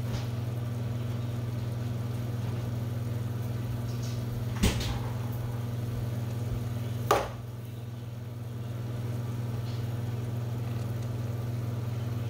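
A steady low hum, like a motor running, with two sharp knocks about two and a half seconds apart.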